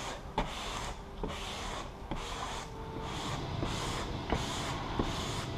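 Squeegee strokes rubbing over vinyl wrap film as it is pressed down onto a car hood, a soft scraping swish repeating about once a second.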